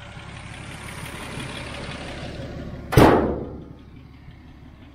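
Vehicle noise building for a few seconds, then a car door slamming once, loud and sharp, about three seconds in, with a short ringing fade.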